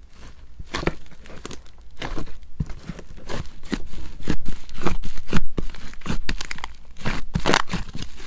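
Thick slime pulled from its plastic tub and squeezed by hand, with a dense run of irregular sticky crackles, pops and tearing sounds that pick up about two seconds in.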